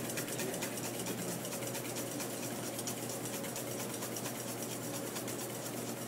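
Wire whisk beating hollandaise sauce in a stainless steel bowl in rapid, steady scraping strokes, emulsifying clarified butter into the egg yolks.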